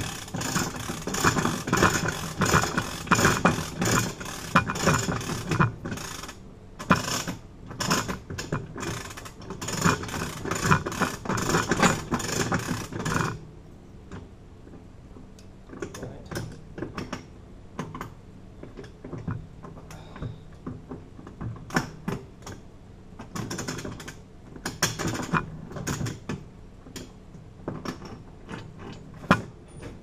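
Dense, rapid metallic clicking and rattling for about thirteen seconds, then scattered clicks: tools and a padlock being handled.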